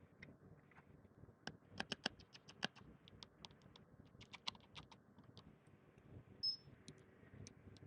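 Irregular light clicks and taps, like small tools being handled on a repair bench, thickest in the middle. A short high beep comes about six and a half seconds in.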